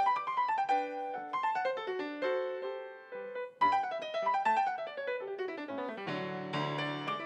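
Solo piano music: flowing runs of notes that fall in pitch, breaking off briefly just past halfway, then falling again into a fuller, deeper chord near the end.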